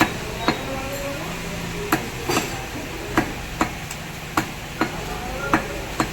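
A large mrigal carp being chopped: about ten sharp, uneven chopping knocks as a blade strikes through the fish onto the cutting block, over a background murmur.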